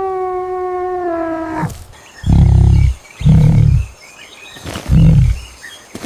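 A long held pitched call bends down and ends about a second and a half in. Then a big cat gives three deep, short roaring grunts, with birds chirping faintly in the background.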